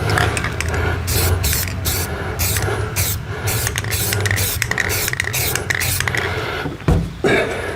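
Aerosol spray paint can hissing in a quick series of short bursts over a steady low hum, with a single thump near the end.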